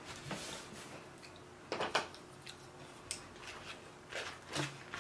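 Faint clicks and scrapes of a wooden spoon and foam takeout boxes being handled, a handful of separate knocks with the loudest about two seconds in.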